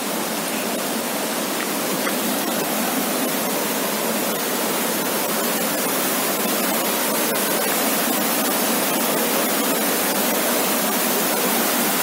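Muddy, swollen stream rushing over rocks in rapids: a steady, even rush of water.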